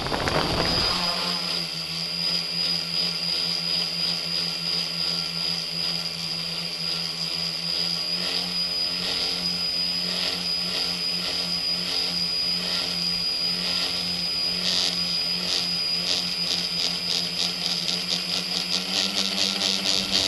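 The tricopter's electric motors and propellers, heard from its onboard camera, spin up from rest with a rising whine in the first second. They then run at a steady hum and whine as it climbs, with a fast pulsing that grows over the last few seconds.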